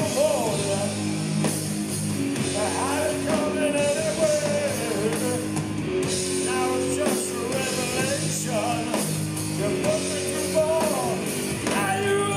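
Doom metal band playing live: distorted electric guitars and drums, with a male voice singing over them.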